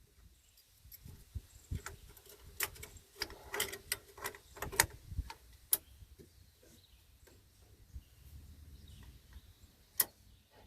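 Scattered sharp metallic clicks and light rattles from a semi-auto Sterling carbine being handled, with a few spaced clicks and the sharpest about ten seconds in.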